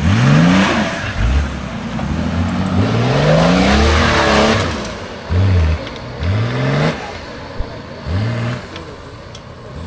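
Off-road vehicle's engine revved hard in repeated bursts, rising in pitch each time: several short blips and one long climb of about two seconds in the middle.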